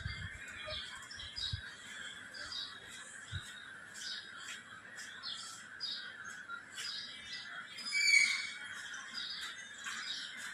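Birds calling and chirping over and over, with one louder call about eight seconds in, over a steady high drone. A few low knocks come in the first second or two.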